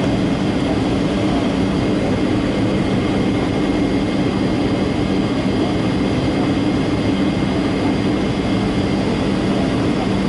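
Boeing 757-200 cabin noise in flight: steady jet engine and airflow rush heard from inside the cabin, with a constant low hum and faint high whines and no change in level.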